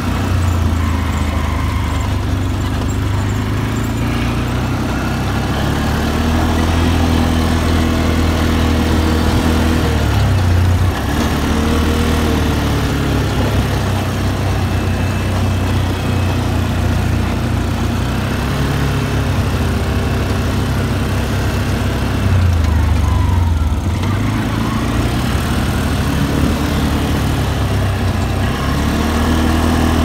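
Quad bike (ATV) engine running as it is ridden along a dirt track. The pitch is steady, with two brief dips and rises as the throttle eases and opens again, about a third of the way through and again about three quarters of the way through.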